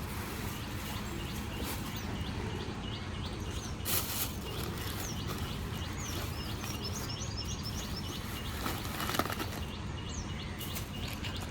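Small birds chirping over a steady outdoor background hum: many short repeated chirps, with a quick trill of higher chirps about halfway through and a brief louder rustle or clatter twice.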